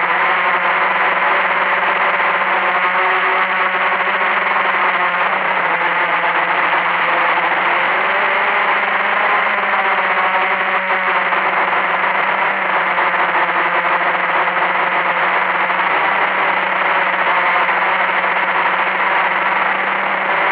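Blade 350QX quadcopter's four electric motors and propellers whirring steadily, heard close up from its own onboard camera, the pitch wavering slightly as the motors adjust in flight.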